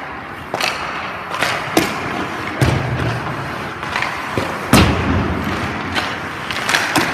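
Hockey goalie skates scraping across the ice, with a string of sharp knocks and two heavier thuds, about two and a half and almost five seconds in.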